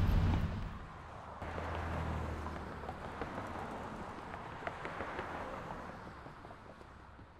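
City street traffic: cars passing through an intersection as a steady noise, swelling as a car goes by about two seconds in and slowly fading after. A low rumble at the very start stops within the first second.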